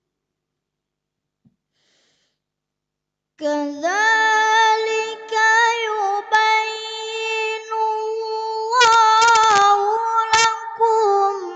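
A boy reciting the Qur'an in melodic tilawah style into a microphone. He starts about three seconds in after a silent pause, with long held notes ornamented by quick wavering turns.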